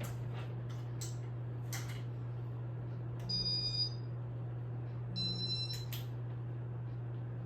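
Two short electronic beeps from a Casablanca ceiling fan's control, about three and five seconds in, as its speed buttons are pressed. A steady low electrical hum and a few faint clicks sit under them.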